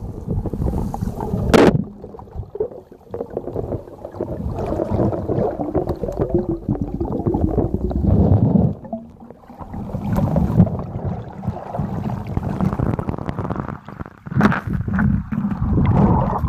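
Muffled water sloshing and gurgling around a camera held underwater, with a sharp knock about one and a half seconds in.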